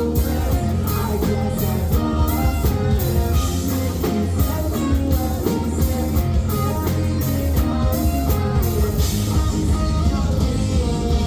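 A rock band playing live: electric guitar lines over bass and a drum kit.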